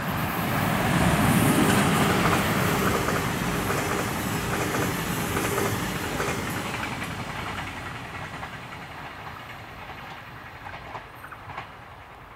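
DB Class 147 electric locomotive and its double-deck Intercity coaches passing by. The running noise peaks about a second or two in, with repeated wheel clicks over the rails, then fades steadily as the train moves away.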